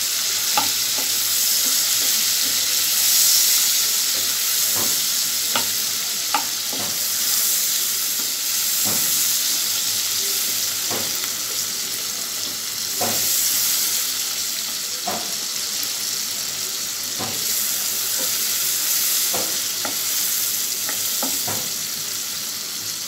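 Chopped onions sizzling steadily in hot oil in a wok. A wooden spatula stirs them, scraping and knocking against the pan every second or two.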